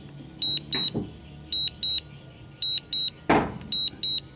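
DJI return-to-home alert: short high beeps in pairs, a pair about once a second, sounding while the DJI Neo flies itself home after a high-wind warning. A short burst of noise cuts in about three seconds in.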